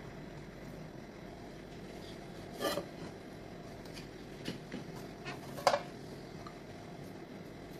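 A ceramic plate knocking against a mixing bowl and the countertop, two sharp clatters with a few light clicks between them, over a steady low hum.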